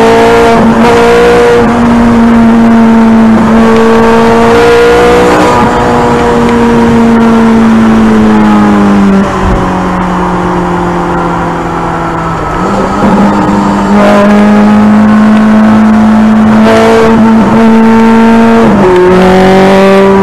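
Ferrari 430 Scuderia's naturally aspirated 4.3-litre V8 running hard at high Autobahn speed, heard from inside the cabin. The loud engine note drifts slowly in pitch and jumps abruptly up or down several times as gears are changed.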